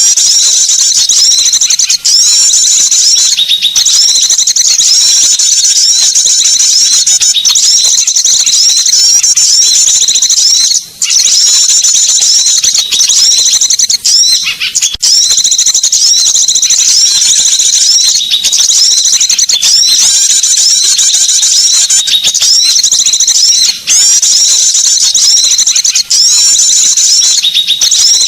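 Loud, dense chorus of rapid high-pitched chirps and trills from small songbirds, nearly unbroken, with a few brief gaps. It is a bird-lure call recording, played to attract small birds.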